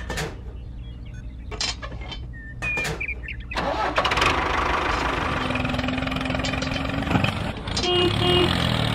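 A few sharp knocks of toy parts being set down, then about three and a half seconds in an engine starts and runs steadily, standing for the toy tractor. Two short beeps sound near the end.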